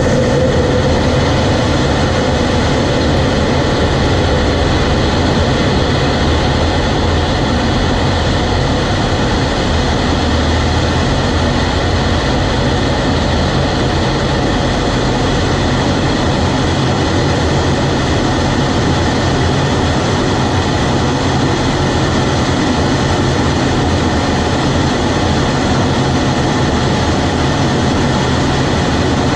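F-16 jet engine at takeoff power with air rushing over the airframe, heard from a camera mounted on the jet through the takeoff roll and liftoff. A steady, loud, dense noise that holds level throughout.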